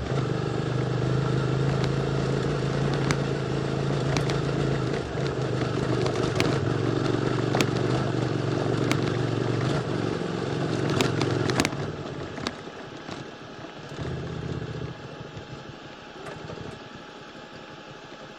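QJMotor SVT650X motorcycle with an Arrow Racetech slip-on exhaust running steadily under way, with many sharp clicks over the engine note. About twelve seconds in, the engine note drops away to a much quieter low running, rising briefly once about two seconds later.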